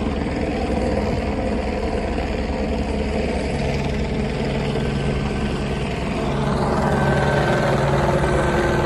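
Low-flying sheriff's helicopter: steady rotor chop and engine hum, growing louder about six seconds in as it comes closer.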